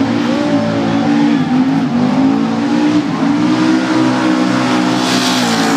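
Car engine revving hard and held at high revs, its pitch wavering up and down as the car slides. A loud hiss rises about five seconds in.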